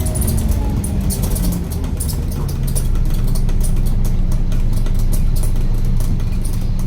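A bus's diesel engine running steadily at a low idle, with quick rattles and clicks of loose fittings over it.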